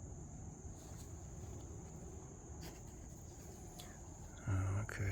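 Steady high-pitched trill of insects, cricket-like, running without a break over a low rumble, with a few faint clicks and a brief louder low hum near the end.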